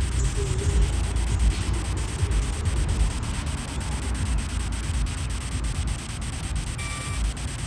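Hissing static from the Ghost Tube ghost-box app: a steady noise crossed by faint rapid regular ticks, several a second, over a low rumble.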